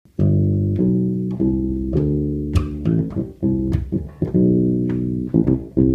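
Electric bass guitar played alone, a run of sustained plucked notes changing every half second to a second.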